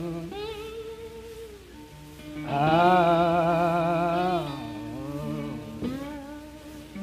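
Soundtrack music: a wordless humming voice and guitar, the notes wavering and sliding, swelling louder about two and a half seconds in.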